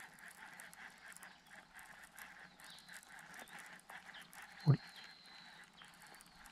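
A fishing reel is being cranked with a faint, fine ticking while a hooked bass is played on a bent rod. There is one short, low thump about four and a half seconds in.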